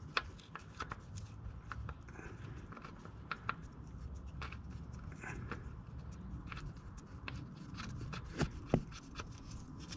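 Scattered light clicks and scrapes of a metal fill plug being threaded by hand into a Vanagon manual transmission case and turned finger-tight.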